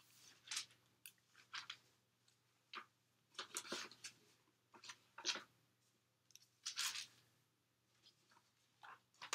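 Pages of a Bible being turned: a run of short, faint, papery rustles, one every second or so.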